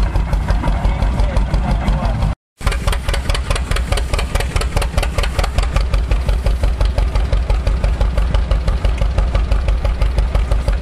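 Tractor engine powering an antique belt-driven hay baler, running steadily with an even beat of about six firing pulses a second. The sound cuts out completely for a moment about two and a half seconds in, then the same running resumes.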